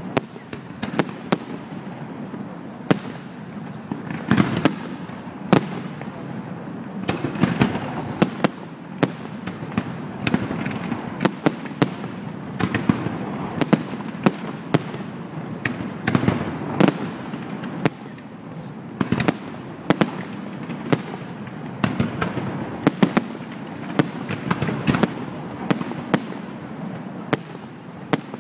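Fireworks display: aerial shells bursting in quick succession, sharp bangs coming several times a second over a continuous noisy background.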